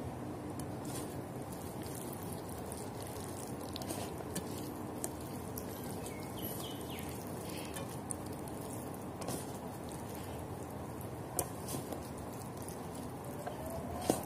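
Faint wet pats and small clicks of hands rubbing minced garlic marinade onto a raw salmon fillet, over a steady low background hum.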